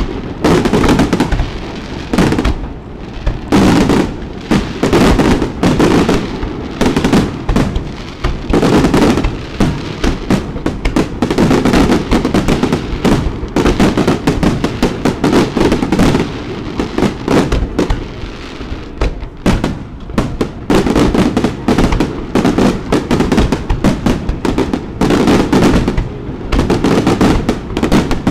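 Professional aerial firework shells bursting in rapid succession: a dense, continuous run of bangs with a few short lulls.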